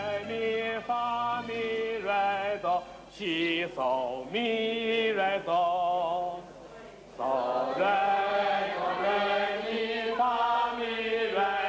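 Singing: a voice holding long, wavering notes in a chant-like melody, with a short pause about six seconds in.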